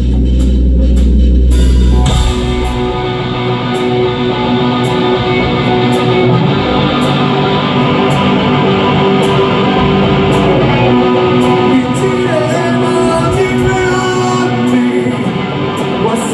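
Instrumental intro of a rock song, led by guitars. A deep low rumble in the first two seconds gives way to the full band.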